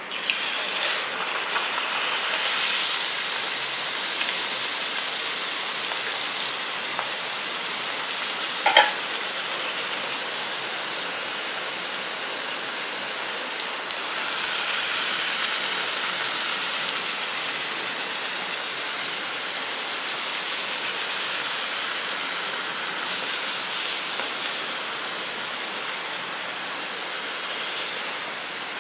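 Mullu murungai vada (rice-and-thorny-drumstick-leaf patty) deep-frying in hot oil: a steady sizzle that starts suddenly as the patty goes into the oil. A brief clink about nine seconds in.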